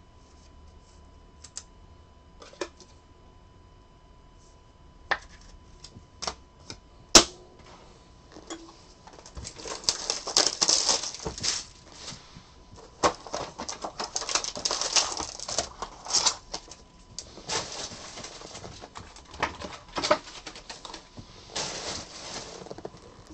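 A few light clicks and taps, then about nine and a half seconds in, crinkling and rustling in repeated bursts as a cardboard hobby box of Bowman Chrome baseball card packs is opened and the foil-wrapped packs are handled.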